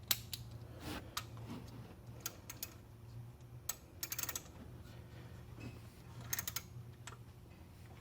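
Hand ratchet clicking in short runs as its handle is swung back for the next pull on a tight bolt, with scattered light metal clicks and taps of the socket and tool in between.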